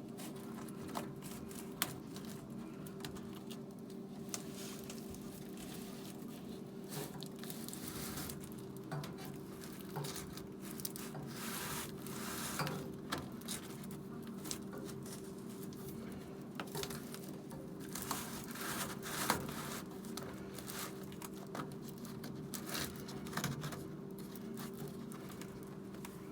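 Crinkling, rustling and tearing as a new flexible dryer duct is unboxed and handled, with scattered sharp clicks and knocks, over a steady low hum.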